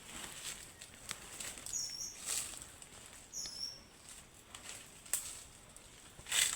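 Amazon rainforest ambience: a steady high insect tone, two short high calls that fall in pitch about two and three and a half seconds in, and scattered rustling and crackling in the leaf litter, loudest near the end.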